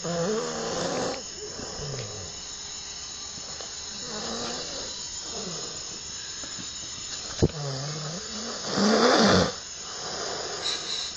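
A person snoring: several snores about a second long, the loudest about nine seconds in. A sharp click comes about seven and a half seconds in, and a steady high-pitched whine runs behind.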